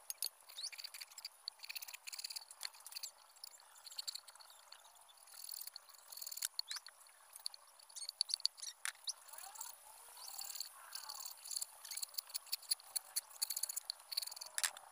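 A hacksaw and a bolo knife cutting a short bamboo tube, making irregular short scraping strokes and clicks that come quicker near the end. A steady, high-pitched insect drone runs behind.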